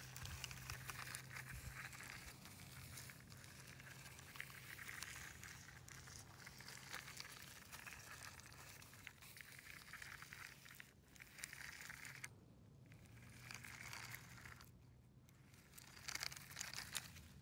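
Faint crunching and scraping of a plastic toy car's wheels being pushed through dry sand, with short pauses in the rustling.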